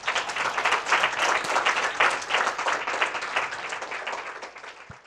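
Audience applauding: dense clapping that starts suddenly and dies down over the last couple of seconds.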